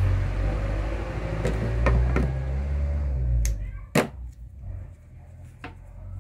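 Shoe-patcher sewing machine's electric motor running with a low hum, dying away about three seconds in. A few sharp clicks follow, the loudest about four seconds in.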